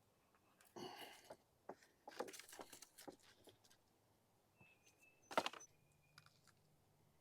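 Faint scattered rustles and clicks, with one sharper click about five seconds in, and a faint thin steady whistle-like tone near the end.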